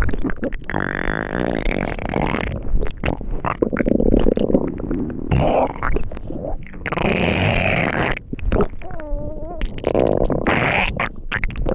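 Synthesized stomach growls and gurgles made with the eSpeak speech synthesizer's Klatt voice: a continuous string of rough, rumbling, burbling segments. About nine seconds in there is a short wavering pitched tone.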